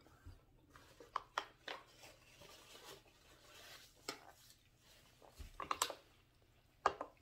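Faint handling sounds at a table: a pizza slice set down on a paper plate, then a paper napkin rustled and rubbed between the fingers, with scattered light clicks and taps.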